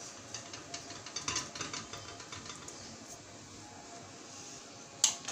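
Metal spoon spreading sauce over a flatbread on a chopping board: a run of small scrapes and clicks, then a single sharp click near the end.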